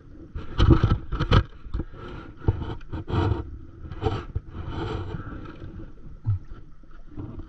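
Water slapping and lapping against a stand-up paddleboard, in irregular bursts over a low steady rumble.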